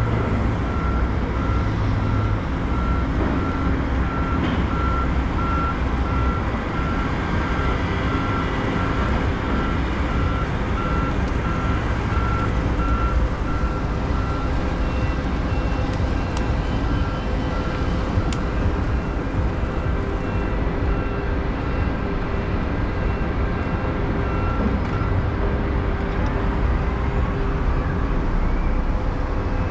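Steady traffic and engine rumble, with a vehicle's reversing alarm beeping at an even pace through the first half. A higher, fainter beeping runs through the middle stretch.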